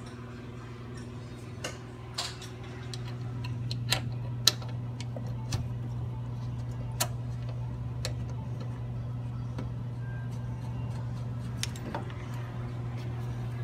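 Scattered sharp metal clicks and taps from a wrench and brake-line fittings as steel braided brake lines are connected, the loudest about four and a half seconds in. A steady low hum runs underneath.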